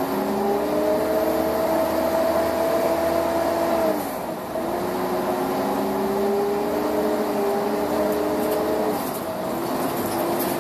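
Volvo Olympian double-decker's Cummins L10 diesel and ZF four-speed automatic gearbox pulling away under load, heard from inside the bus. The drivetrain note climbs steadily, drops with an upshift about four seconds in, climbs again, and drops with another upshift about nine seconds in.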